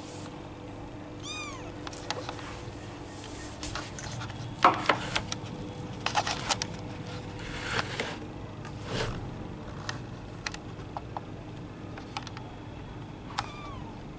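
Kitten giving a short, high mew about a second and a half in and another near the end, with rustling and light knocks in between as it moves among green onion stalks in a plastic basket.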